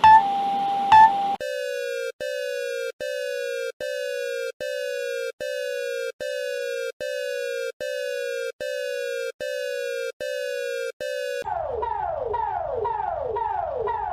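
Electronic emergency-alert alarm tones: a steady tone that cuts off about a second in, then a string of short beeps, each falling slightly in pitch, repeating a little more than once a second. Near the end these change to faster, repeated downward sweeps, like a siren.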